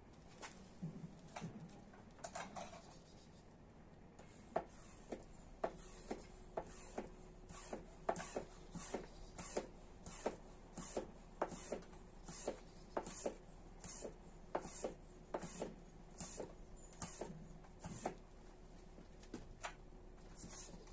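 Hand-pumped vacuum oil extractor being worked by its plunger handle, a short click on each stroke at about two strokes a second from about four seconds in, after a few handling knocks. The pumping builds vacuum to draw warm engine oil up a thin lance from the bottom of the sump through the dipstick tube.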